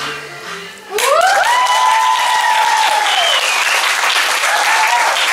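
A song fades out at the start. About a second in, the audience starts applauding loudly and steadily, with long rising whoops of cheering over the clapping.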